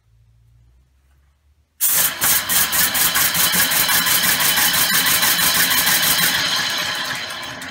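Homemade compressed-air engine running on a single cylinder, its air exhaust chuffing in rapid, even pulses. It starts abruptly about two seconds in and tapers off near the end.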